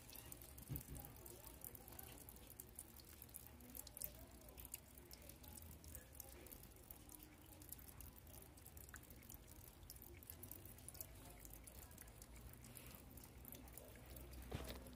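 Near silence with faint, quick, irregular clicks of a cat lapping water.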